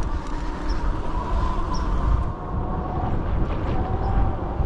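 Wind rushing over the microphone of a moving electric bike, with the electric motor's thin, steady whine, which drops in pitch about three seconds in.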